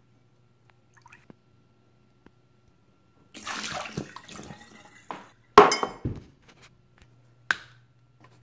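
Water from a kitchen tap runs briefly over a glass measuring cup in a sink a little after halfway, followed by three sharp knocks, the first the loudest.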